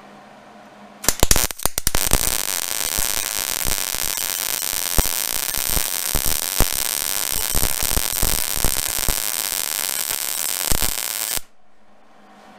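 Hobart Handler 140 MIG welder arc welding a bead: a few stuttering pops about a second in, then a steady crackle with frequent sharp pops for about ten seconds, cutting off suddenly near the end. At voltage 3 and wire feed 35 this is a weld with not enough voltage.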